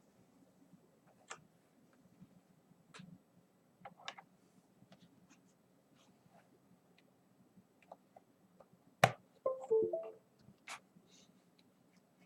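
Keyboard keys pressed one at a time at a slow, irregular pace, a scattering of light clicks. About nine seconds in there is one louder knock, followed by a short pitched sound.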